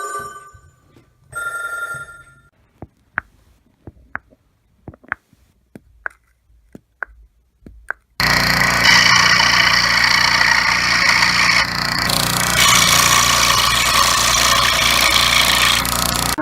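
A bell-like telephone ring, twice, followed by about a dozen sharp, irregular clicks. Then a loud, dense, hissing-and-rumbling sound cuts in abruptly and runs for about eight seconds.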